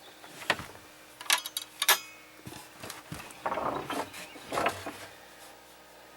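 A drawer being handled and pulled open: a scatter of sharp clicks and knocks with a short scraping slide in the middle.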